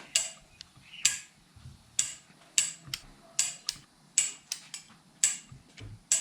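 Hand tools clicking on an LS1 V8 cylinder head being assembled: a run of sharp metallic clicks, about one a second.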